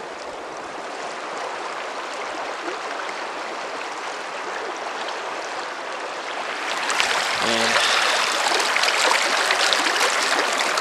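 River water rushing over a shallow, rocky stretch: a steady wash that grows louder and more splashy about seven seconds in.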